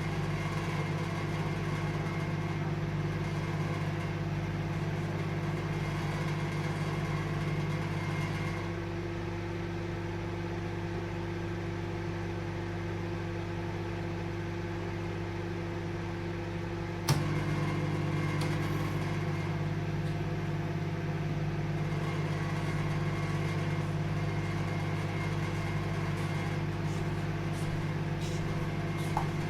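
Microwave oven running with a steady, many-toned hum. About eight seconds in, the hum drops slightly thinner and quieter. About seventeen seconds in, a sharp click brings the fuller hum back, the way a microwave's relay cycles the magnetron off and on while the fan and turntable keep running.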